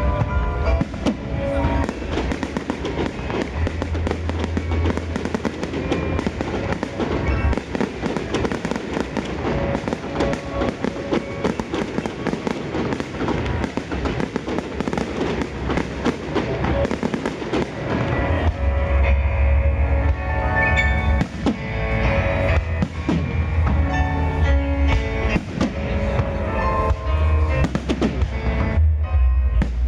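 Fireworks display bursting in a dense, continuous barrage of bangs and crackles, over loud music with a heavy bass that grows stronger in the second half.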